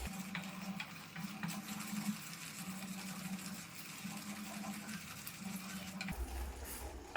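Spoon stirring and scraping thick jaggery-and-ginger syrup simmering in a pan, with light clicks and a low pulsing hum that stops abruptly about six seconds in.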